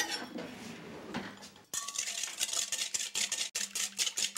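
Wire whisk beating egg yolks, sugar and Vin Santo in a bowl: a quick, steady clicking of the whisk against the bowl, starting a little under two seconds in.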